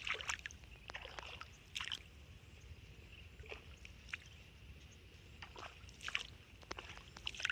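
Bare feet wading through a flooded rice paddy, shallow water and mud sloshing and splashing in short, irregular bursts about every second.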